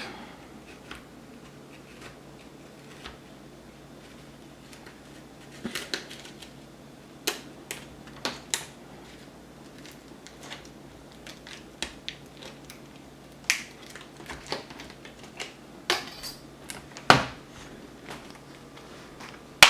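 Plastic screen bezel of an HP Compaq 15-ay052 laptop being pried off with a prying tool: irregular sharp clicks and snaps as its clips release, with one louder snap about three-quarters of the way through.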